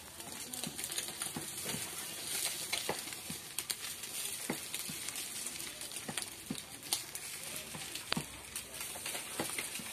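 Egg frying in oil on a flat pan over a gas burner: a steady sizzle with scattered sharp crackles and clicks.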